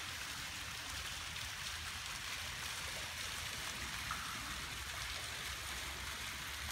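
Stone courtyard fountain splashing: a steady, even wash of falling water.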